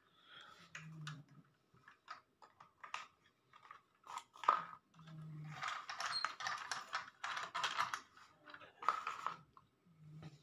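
Light plastic clicks and knocks as a toy train engine and its wagon are handled and set onto plastic track, with a few seconds of rustling and scraping in the middle.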